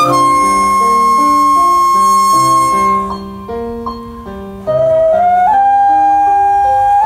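Daegeum, the Korean bamboo transverse flute, playing a slow melody over a chordal accompaniment. It holds one long high note for about three seconds, plays a softer passage, then slides up into a note held near the end.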